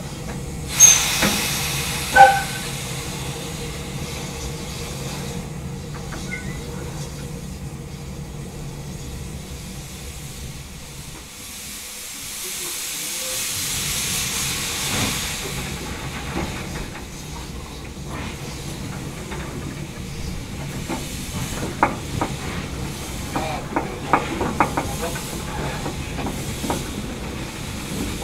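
Wood-fired narrow-gauge steam locomotive hissing steam over a steady low rumble, with two loud sharp knocks about one and two seconds in and a strong swell of hiss about halfway through. In the last third come repeated metallic clanks and clicks.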